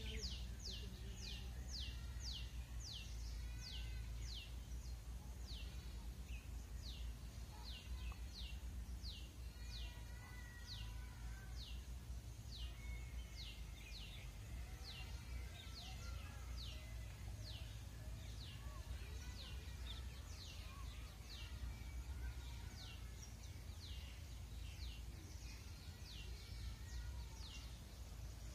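Outdoor ambience: a thin, high chirp that slides downward, repeated evenly about three times every two seconds. Beneath it run faint distant bird calls and a low rumble of wind on the microphone.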